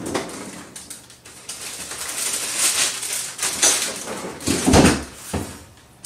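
Off-camera handling noise: rustling and clattering while zip-top bags of frozen cookie dough are fetched, with a heavy low thump about four and a half seconds in.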